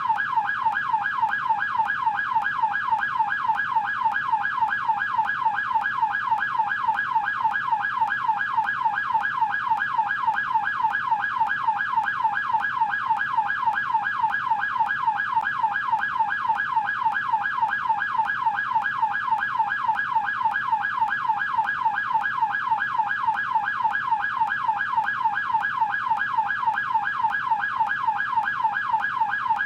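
American police siren on its yelp setting: a fast, steady up-and-down wail, about three sweeps a second, repeating without a break.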